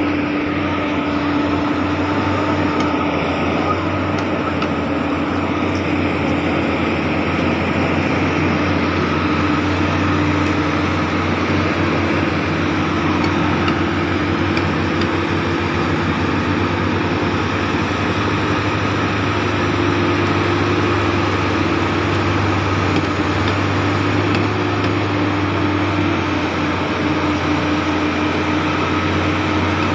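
Steady, loud drone of heavy diesel engines running at low speed, with a constant low hum and a steady mid-pitched tone and no sudden events.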